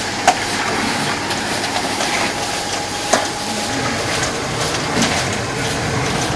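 Rotary dryer running: a steady mechanical rumble and rattle, with a few sharp clicks or knocks, one near the start and one about three seconds in.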